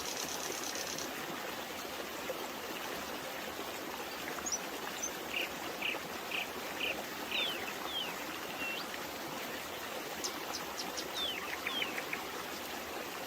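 Babbling brook running steadily, with small birds chirping over the water: a run of about five evenly spaced chirps about five seconds in, then quick high notes and down-slurred calls near the end.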